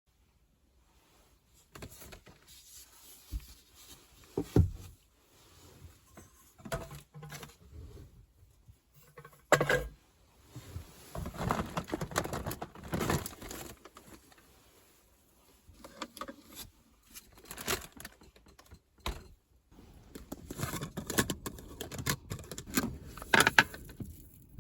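Objects being handled at close range: irregular knocks and clicks with spells of rustling and crinkling, and a few louder knocks.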